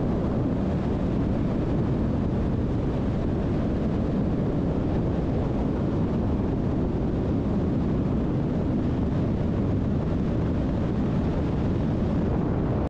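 Steady rush of wind and road noise while riding a motorcycle along a highway at speed.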